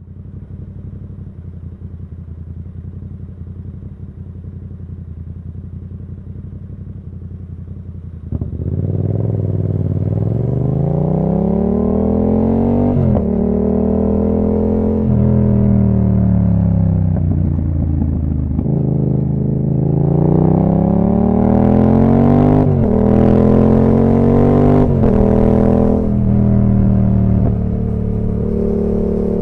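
2019 Yamaha MT-07's 689 cc parallel-twin engine through an Akrapovic full exhaust system, running at a steady low note, then pulling away about eight seconds in. Its pitch climbs with sharp drops at the gear changes, falls away as the bike slows, climbs again through more shifts, and settles to a steady cruise near the end.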